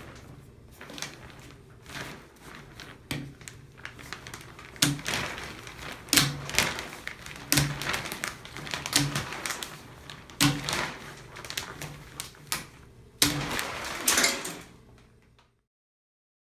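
Plastic shower curtain rings clicking and clattering as they are snapped shut through the curtain and hung on the rod, a sharp click every second or so. The sound cuts off suddenly near the end.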